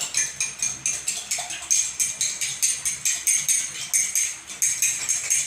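A spoon stirring sugar into lime juice and warm water in a glass, clinking against the glass about three times a second, each clink ringing briefly.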